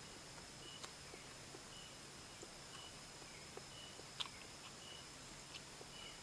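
Faint insects chirping at night: a short high chirp about once a second over a steady high-pitched drone, with a few soft clicks and one sharper click about four seconds in.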